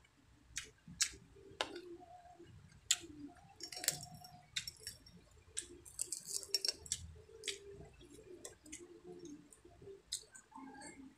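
Crispy fried dried milkfish torn apart by hand and eaten close to the microphone: scattered sharp crackles and crunches, thickest in the middle, with soft wet mouth sounds.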